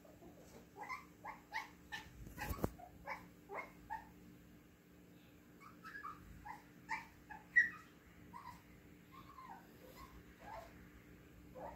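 A pet making short whining cries over and over, in uneven bouts, with one sharp knock about two and a half seconds in.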